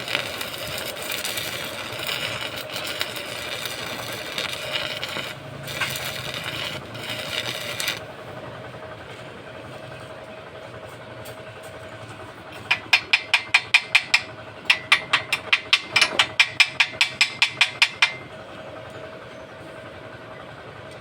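Stick arc welding on steel: a crackling, sizzling hiss for about eight seconds, then it stops. Later comes a quick run of sharp metal taps, about six a second, in two bursts, over a steady hum.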